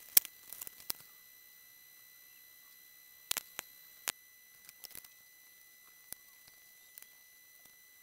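Scattered sharp clicks and ticks, a cluster in the first second and a few louder ones around three to four seconds in, over a faint steady high-pitched whine.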